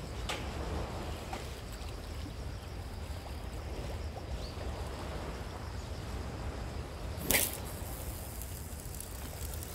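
A spinning rod cast: one short, sharp whoosh about seven seconds in as the rod is swung and the line flies off the reel, over a steady low outdoor rumble. A light click or two near the start as the spinning reel is readied.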